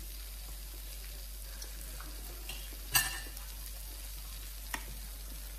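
Chicken sizzling steadily on an electric hotpot grill plate. A sharp clack about three seconds in, and a lighter one near the end.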